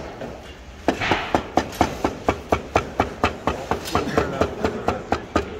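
Knife chopping cooked meat on a plastic cutting board: quick, even strokes about four a second, starting about a second in.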